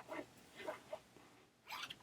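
Faint sounds of hand knitting: knitting needles and yarn being worked, giving a few short soft taps and rustles, the last and loudest near the end.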